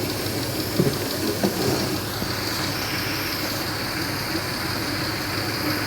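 1996 Toyota Camry V6 idling steadily while misfiring on all six cylinders and running lean on bank 1, a condition the mechanic suspects comes from a vacuum leak. A couple of light knocks sound about a second in.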